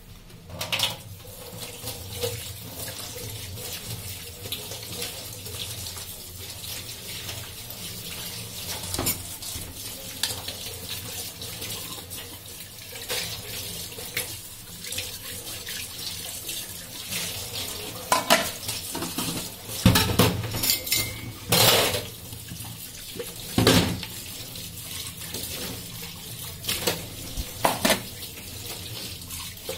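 Tap water running into a stainless steel sink as dishes are rinsed by hand, the stream splashing off bowls. Dishes and steel cutlery clatter against the sink several times, loudest a little past the middle.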